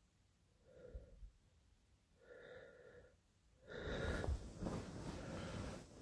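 A man breathing close to the phone's microphone: two short breathy breaths about a second and two seconds in, then a longer, louder breath from a little before four seconds in.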